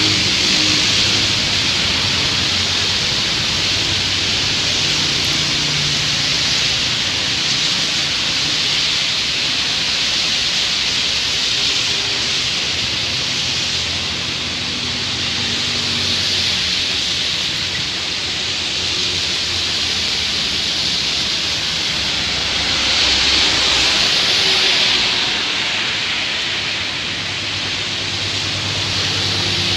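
Heavy rain falling as a steady, loud hiss, with the low hum of motorcycles and other vehicles passing on a wet road underneath.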